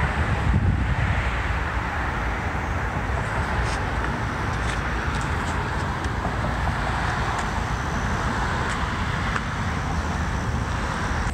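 Steady city traffic noise: a constant wash of road noise with a low rumble, and a few faint clicks.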